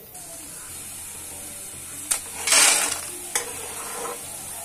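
Black soybeans sizzling as they fry in oil in a metal kadhai, with a steady hiss throughout. A metal spatula clinks sharply against the pan twice and scrapes through the beans in a louder rattle about halfway through.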